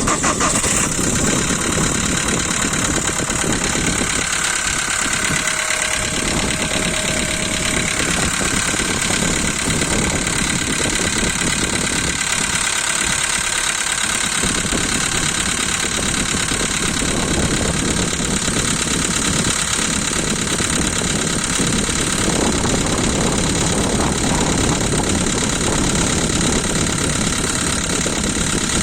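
Volkswagen 1.6 CFNA four-cylinder petrol engine idling steadily just after a cold start, with a knock from the engine that shows up when it is started cold.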